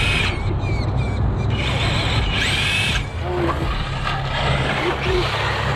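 Brushless electric motors of radio-controlled trucks whining as they spool up and back down under throttle, several short whines with the loudest about two and a half seconds in.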